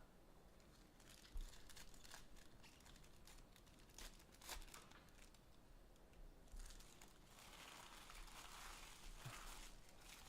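Faint crinkling and tearing of trading-card packaging being opened, with scattered light clicks and, from about six and a half seconds in, a steadier rustle.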